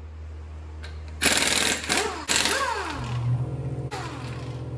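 Pneumatic impact wrench with a 21 mm socket hammering wheel lug nuts loose. Two short bursts come about a second and two seconds in, each trailing off in a falling whine as the motor spins down. A steadier run follows from about three seconds in.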